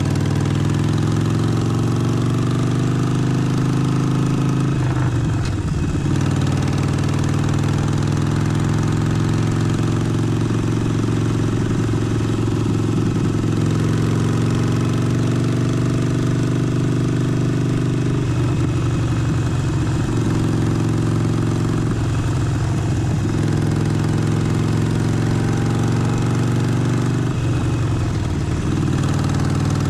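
Harley-Davidson Forty-Eight's air-cooled 1200 cc V-twin engine running steadily, heard raw. Its note breaks and shifts briefly about four times.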